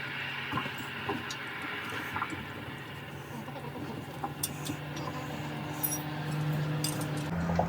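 A motor vehicle's engine running steadily, its low hum growing stronger near the end, with scattered light clicks over it.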